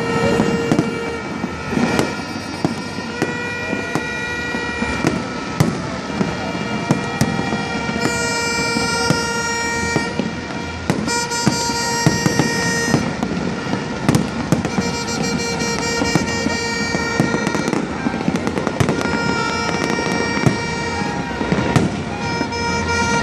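Fireworks bursting in a continuous barrage of bangs and crackles. Long horn toots are held for a second or two at a time over the bangs.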